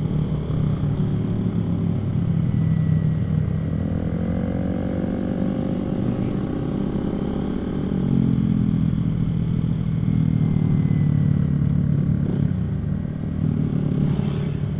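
Motorcycle engine running under way, its pitch rising and falling several times as the throttle is opened and closed, over a steady low wind rumble.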